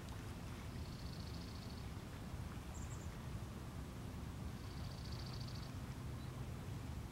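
Two faint, high, buzzy trills from a distant small bird, each about a second long and a few seconds apart, with a brief higher chirp between them, over a steady low outdoor rumble.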